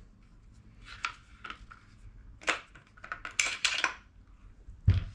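Metal clicks, clinks and light scraping from a Silverback TAC-41A airsoft sniper rifle being taken apart by hand: the folding stock swung over and the cylinder worked loose. A close run of clicks comes a little past the middle, and a low thump comes near the end.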